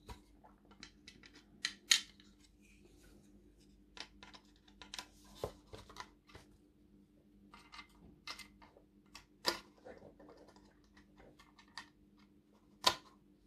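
Light clicks and taps of hard plastic model-kit parts being handled and pressed together as the seat is fitted onto its locating notches on the cab floor. A few sharper clicks stand out, spaced a few seconds apart.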